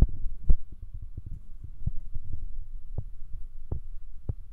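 Low rumble with irregular soft thumps and pops, typical of wind buffeting a phone's microphone in an open field.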